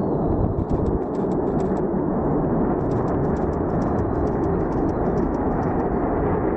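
F-22 Raptor's twin Pratt & Whitney F119 turbofans at takeoff thrust as the fighter lifts off: a loud, steady jet rumble with a rapid crackling that sets in about half a second in.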